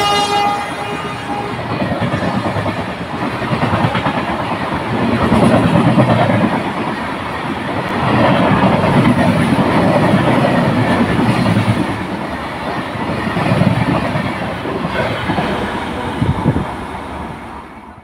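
Passenger coaches of an express train passing at speed: a continuous rumble and clatter of wheels on the rails that swells and eases in waves. The electric locomotive's horn cuts off about half a second in, and the sound fades out at the very end.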